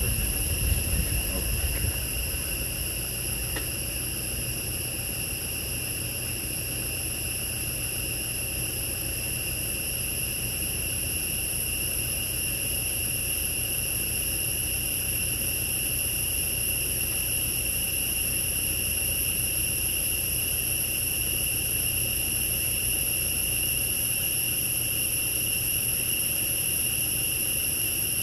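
Steady chorus of insects, a continuous high-pitched buzz at an even pitch, over a low rumble.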